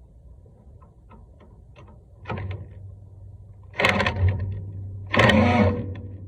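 Light clicks and taps, then three short bursts of a hard mechanical rattle, the last two the loudest, over a steady low hum.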